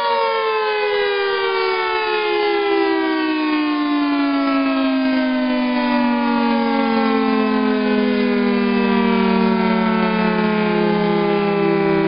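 Federal Signal 2T22 two-tone outdoor warning siren winding down, its two-note chord sliding slowly and steadily lower in pitch while staying loud.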